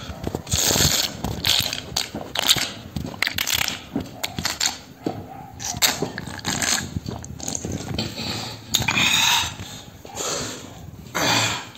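A person slurping broth from the rim of a plastic plate, in a string of short, noisy slurps and sips.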